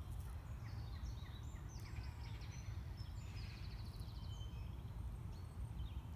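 Several songbirds chirping and singing, with a rapid trill near the middle, over a steady low rumble.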